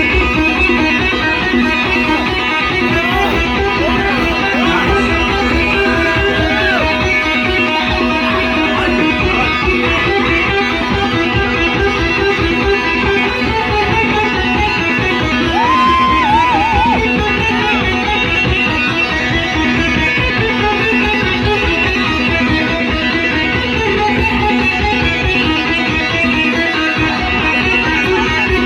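Electric guitar played loud through an overdriven amp, a continuous run of riffs with a few held, bent notes that waver in vibrato.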